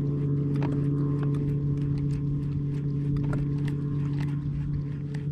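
Bow-mounted electric trolling motor running with a steady hum, with scattered faint clicks over it.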